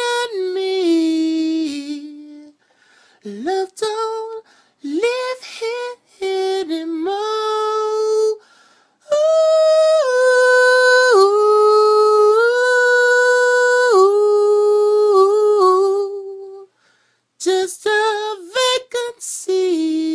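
A man singing a cappella in a high voice, with wordless runs and ad-libs in short phrases. A longer phrase of steady held notes runs from about nine seconds in to about sixteen, and a few short broken notes come near the end.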